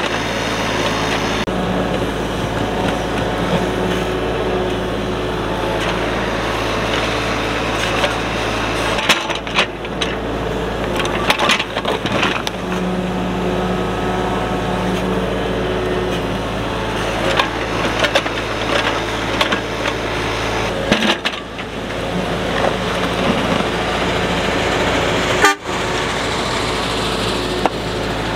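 Kubota mini excavator's diesel engine running steadily under working load, with a few sharp knocks spread through.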